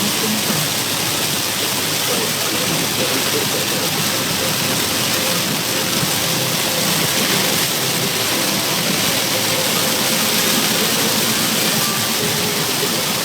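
Heavy rain on a car driving through a rainstorm: a dense, steady rush of water with no let-up.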